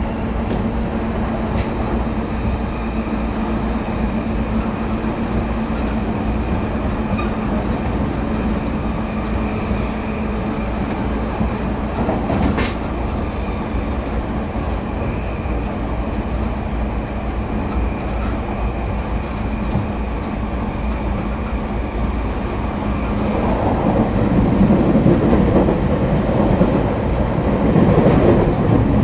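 Running noise inside an E231 series electric commuter train car: a steady rumble of wheels on rail under a faint steady hum. There is one sharp click about halfway through, and the rumble grows louder and rougher over the last several seconds.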